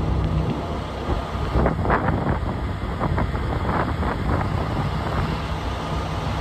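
Wind buffeting the microphone as a dust devil whirls past, a steady low rumble with a few short crackles about two to four seconds in.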